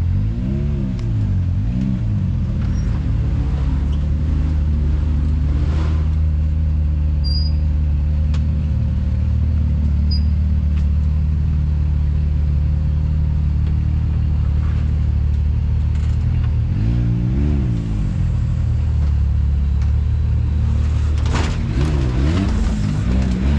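Side-by-side UTV engine running steadily at idle, with short rising-and-falling revs about a second in, again about two-thirds of the way through, and several times near the end.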